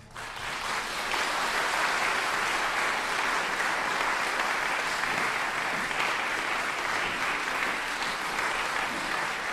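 Audience applause breaking out as the music stops and continuing steadily.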